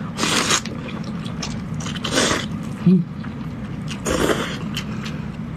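Close-up eating of corn noodles in zhajiang sauce: three noisy slurps about two seconds apart, with chewing between them.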